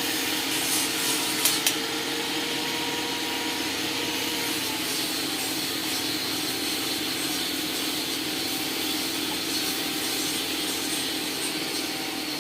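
Steady mechanical whirring noise of a workshop machine with a faint hum, and two sharp clicks about a second and a half in.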